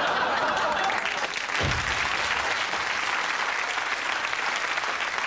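Studio audience applauding steadily, with a short low thump about two seconds in.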